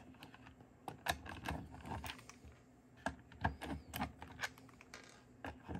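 Light, irregular clicks and taps of hard 3D-printed plastic parts being handled as the alignment tool is pulled off the printed chuck assembly.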